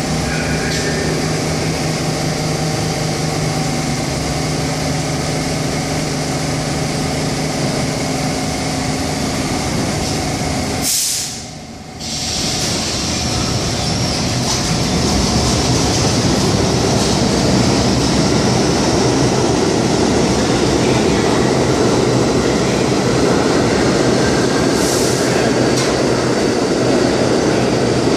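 New York City subway trains of R32 cars running through an underground station. A steady hum with several held tones comes from cars moving on the far track. After a brief drop about eleven seconds in, a louder rumble of wheels on rail builds as a train pulls out and another approaches.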